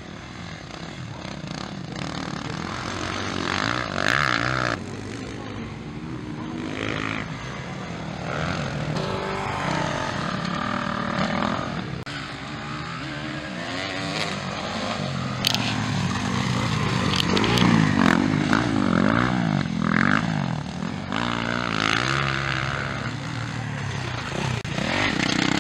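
Motocross dirt bikes racing on a dirt track, their engines revving up and down as the riders work through the gears, getting louder in the second half as bikes pass close.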